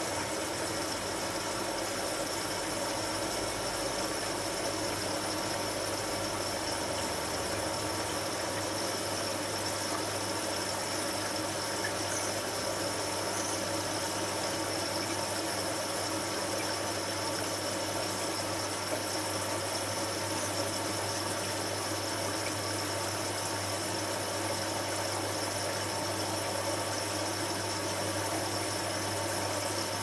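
Hotpoint HF8B593 washing machine running steadily in the cool-down phase of a 90°C cotton wash, with a low machine hum under a steady wash of noise. A still deeper hum drops away about eight seconds in.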